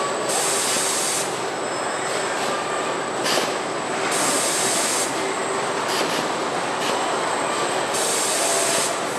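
Car body-shop robot cell running: a steady mechanical din of industrial robots and equipment, with a short sharp hiss about every four seconds, three times.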